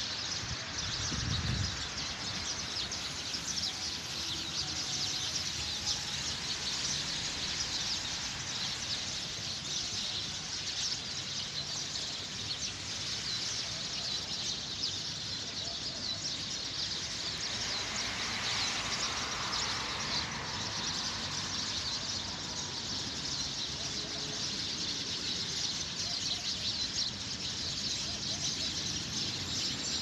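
A chorus of many small birds chirping continuously in the trees, with a brief low rumble of handling or wind noise on the microphone near the start.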